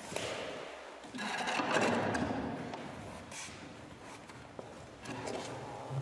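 A wooden chair scraping across a tiled floor as it is pulled out and sat on: a rough rasp that swells about a second in and fades away over the next couple of seconds.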